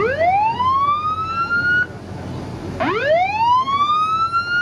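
Coast guard patrol boat's siren sounding a wail that climbs steeply, levels off and cuts off abruptly, twice about three seconds apart, over a steady low rumble.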